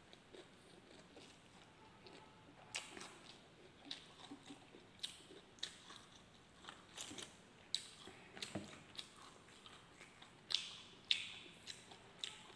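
Close-up chewing and lip-smacking as a man eats roast pork and rice by hand, with many short wet mouth clicks scattered throughout.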